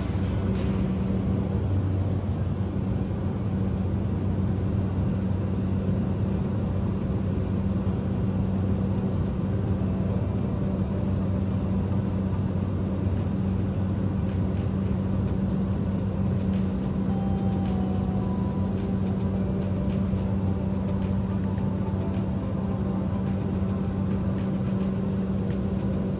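Light aircraft's engine and propeller droning steadily, heard from inside the cabin as a constant low hum.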